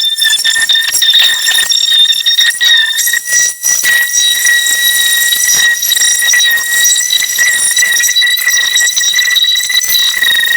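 Handheld electric power tool running continuously with a steady high-pitched motor whine over a rough scratchy hiss. The pitch climbs slightly as it comes up to speed near the start.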